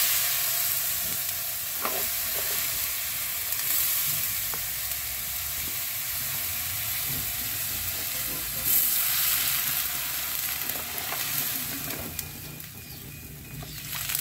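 Water poured into a hot pan of rice fried in oil with tomato and onion, hissing and sizzling loudly as it hits the hot oil. The sizzle starts suddenly, flares up again about nine seconds in, then dies down near the end.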